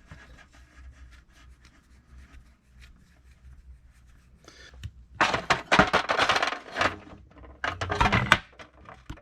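Tools and metal parts scraping and rubbing against a small engine carburetor while it is worked on by hand, with faint clicks at first and then two louder stretches of scraping, about five and eight seconds in.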